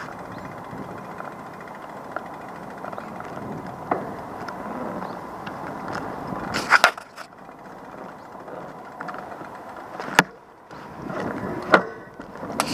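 Steady outdoor background hum, like distant traffic, with several sharp clicks or knocks scattered through it. The loudest pair comes a little past halfway, and the hum drops away abruptly twice, like cuts between shots.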